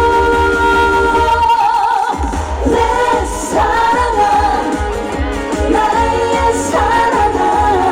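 Live trot song: a female singer's voice over a backing track with a steady bass beat. The bass drops out for a moment about two seconds in, then comes back.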